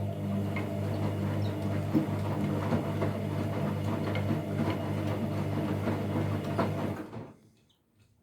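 Washing machine running: a steady hum with light clicking and rattling, which fades away about seven seconds in.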